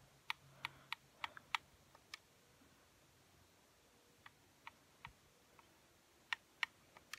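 Sharp single clicks of buttons being pressed one after another, about three a second, to step through an on-screen keyboard letter by letter; they pause for about two seconds in the middle, then resume.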